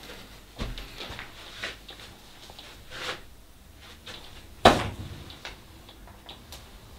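A few scattered clicks and knocks at uneven intervals, with one louder, sharp knock about four and a half seconds in.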